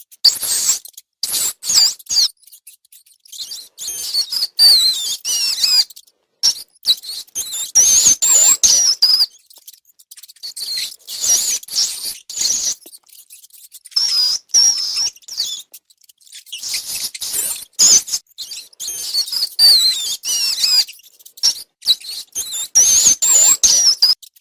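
Rats squeaking in repeated bouts of high, chirping squeaks that slide up and down in pitch, with short pauses between bouts and sharp clicks and scratches mixed in.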